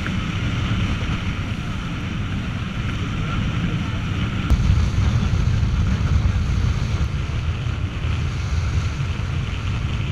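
Wind buffeting the microphone over the rush of water along the hull of a motorboat underway at speed, a steady noisy rumble and hiss.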